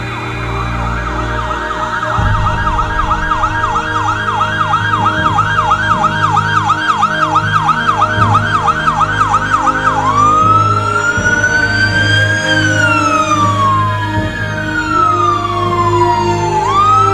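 Fire engine's electronic siren on a fast yelp, about four pitch sweeps a second. About ten seconds in it switches to a slow wail that rises and falls over a few seconds, with the truck's engine rumbling low underneath.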